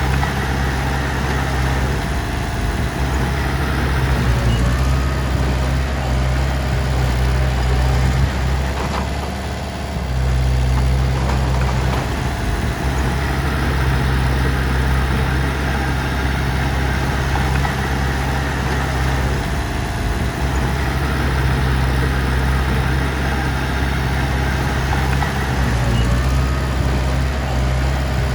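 Heavy diesel engine running steadily at an even speed, with a brief drop in level about ten seconds in.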